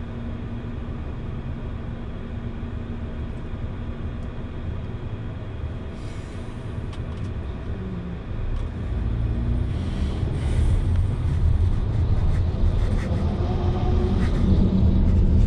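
Low engine and road rumble heard inside a car's cabin, getting louder about eight seconds in as the car gets moving.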